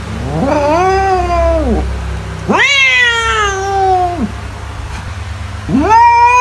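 Domestic cat meowing: three long, drawn-out meows, each rising quickly in pitch and then sliding slowly down, the third starting near the end. A steady low hum lies underneath.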